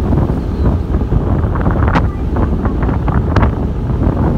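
Strong wind buffeting the microphone in a steady low rumble, with a few short crackles.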